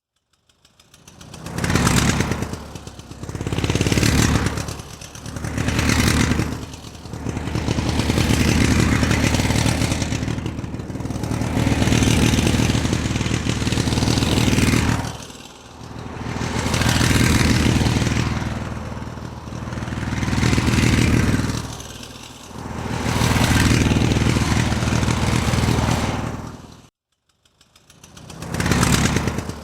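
An engine-driven motor running and being revved repeatedly, rising and falling in swells that last from about a second to several seconds. Near the end it cuts out briefly, then revs up once more.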